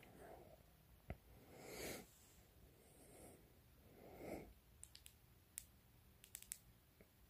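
Faint soft breaths close to the microphone, then a handful of small sharp clicks in the second half as the flashlights' switches are pressed and both lights go off.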